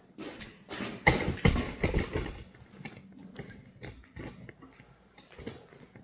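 Sectional garage door being run along its tracks to test newly fitted top roller brackets: the rollers and panels clack and rattle in an irregular string of knocks, loudest in the first couple of seconds and then fainter.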